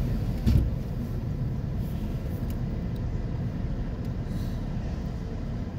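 Steady low rumble of idling traffic heard from inside a car stopped at a light, with a box truck idling alongside. A single short thump comes about half a second in.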